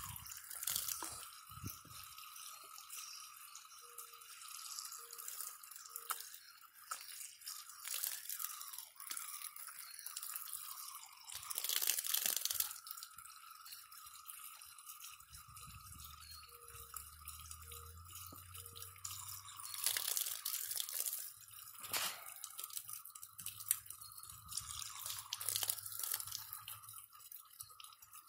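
Water hissing out of a garden hose spray nozzle and splashing and dripping as a capuchin monkey mouths it and puts his hand over the stream, with louder splashy surges now and then.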